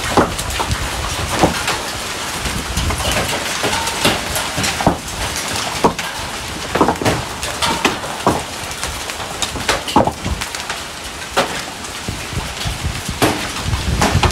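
Hailstorm: a steady downpour of rain and hail, with frequent irregular sharp knocks of hailstones hitting hard surfaces.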